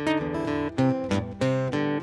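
Background music on acoustic guitar, plucked notes and chords in a quick run.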